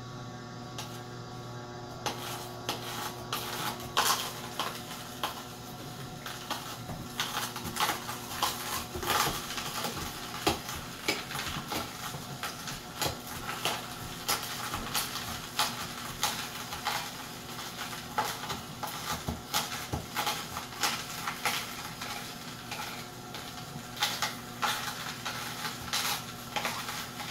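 Horizontal masticating juicer running with a steady low motor hum as its auger crushes a whole carrot, giving dense, irregular cracking and crunching from about two seconds in.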